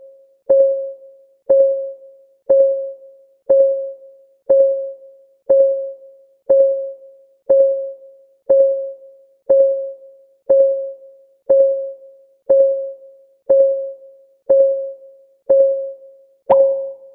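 Countdown timer's ticking sound effect: a short pitched plink, once a second, each dying away quickly. Near the end the ticks turn louder and brighter, as the countdown nears its finish.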